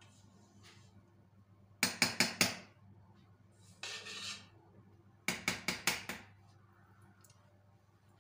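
Stainless steel mixing bowl knocked in two quick bursts of about five or six sharp metallic raps, with a brief scraping sound between them, as the last of the cake batter is shaken and scraped out.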